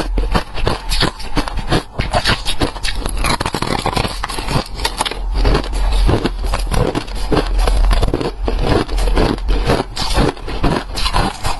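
Ice being bitten and chewed: fast, irregular crunching and crackling with no pause.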